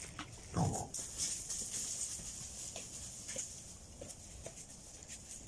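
Wild boar giving one short, low grunt about half a second in, followed by faint scattered ticks and rustles over a steady high hiss.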